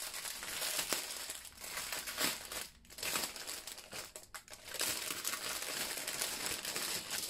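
Clear plastic bag crinkling as hands open it and pull a wrapped tray out of it, with a couple of short pauses.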